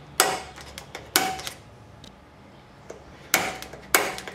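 Center punch snapping into sheet metal clamped in a steel bench vise, marking rivet hole locations: four sharp metallic clicks, each with a short ring, two about a second apart near the start and two more near the end.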